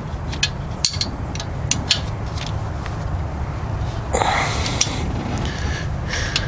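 A wrench clicking against the loose exhaust header bolts of a Chevy 350 as they are snugged up, a quick run of sharp metal clicks in the first couple of seconds over a steady low rumble. A short rush of noise comes about four seconds in.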